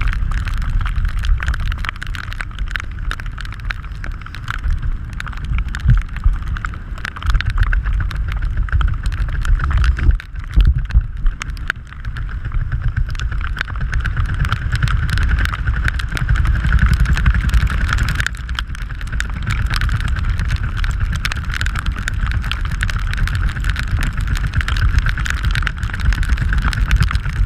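Strong wind rushing over the skydiver's camera microphone during the descent through cloud: a loud, steady buffeting rumble with a hiss and dense crackling over it.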